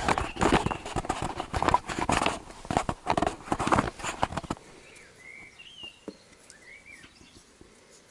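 Loud rustling and knocking of camera handling noise close to the microphone, stopping about four and a half seconds in. After that a quiet background with a few short, high chirping squeaks.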